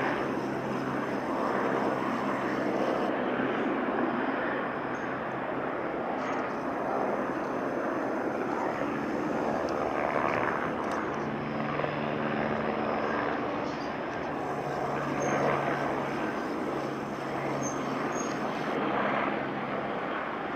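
Steady drone of a helicopter flying at a distance, with a low hum that fades in and out.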